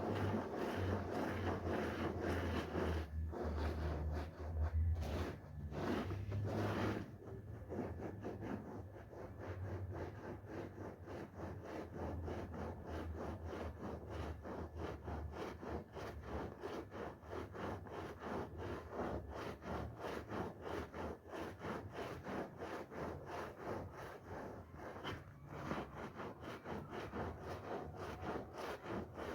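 A brush scrubbing a foamy wool carpet in quick, even strokes. A low hum sits under the first several seconds.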